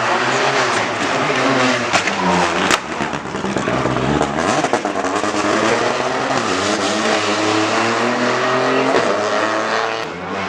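Rally car driving hard on a stage: the engine revs up and drops back repeatedly through gear changes and braking, with a few sharp cracks about two seconds in.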